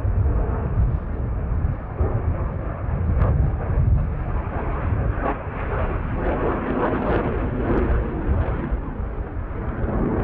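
Jet engine noise from KAI T-50B jets flying an aerobatic display: a loud, steady, deep rumble that swells a little a few seconds in and again past the middle.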